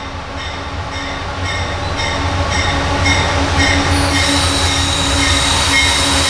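Approaching CSX freight train: the diesel locomotives' low rumble grows steadily louder, and a high rush of train noise builds from about halfway through. A bell rings about twice a second throughout.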